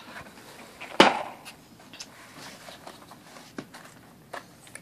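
Small cardboard boxes of cartridges being handled and set down: one sharp knock about a second in, then a few lighter taps and clicks.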